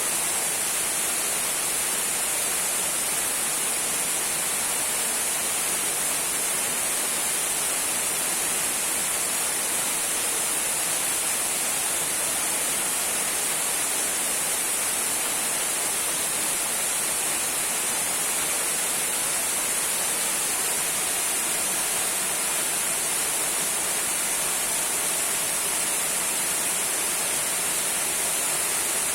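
Small waterfall trickling: a steady, unbroken hiss of falling water, strongest in the high end.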